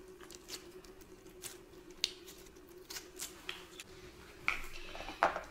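Faint, scattered small clicks and crackles of slime being handled and pulled apart, over a low steady hum.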